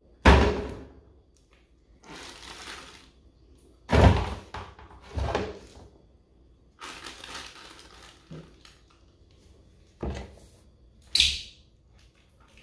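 Handling of whole fish: about five knocks and thuds, the loudest near the start and about four seconds in, as fish are lifted out of a cooler and dropped into a plastic colander, with plastic-bag rustling in between.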